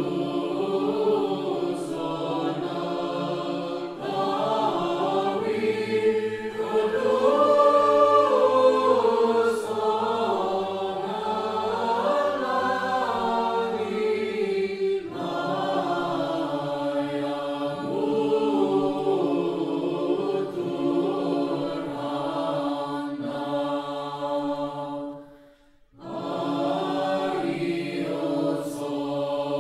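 Church choir singing Orthodox liturgical chant unaccompanied, several voices together. The singing breaks off abruptly about halfway and drops out briefly near the end before resuming.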